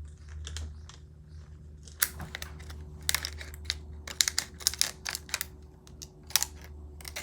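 Scissors snipping a plastic water bottle: a run of irregular sharp snips and clicks starting about two seconds in, over a low steady hum.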